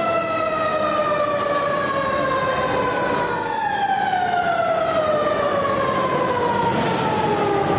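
Siren sounding one long tone that slowly winds down in pitch, over a background hiss.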